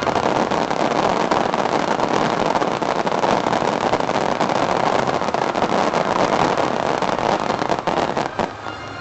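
Dense fireworks barrage crackling continuously, many small bangs merging into one steady noise, which dies away about eight and a half seconds in.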